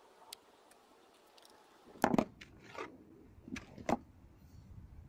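A few knocks and clatters as a cordless drill and hand tools are picked up and set down on the motorhome's roof, the loudest about two seconds in.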